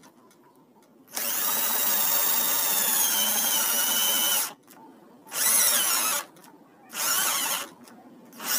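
Makita 12 V cordless drill driving a stepped pocket-hole bit through a board in a pocket-hole jig: one long run of about three and a half seconds whose motor whine drops in pitch as the bit bites, then two short bursts, then a fresh start near the end.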